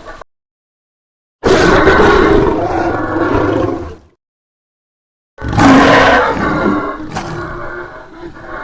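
Monster alien roar sound effect made by layering lion, elephant and howler monkey calls. Two roars, each breaking in suddenly after dead silence: the first lasts about two and a half seconds, and the second, near the end, starts loud and trails off.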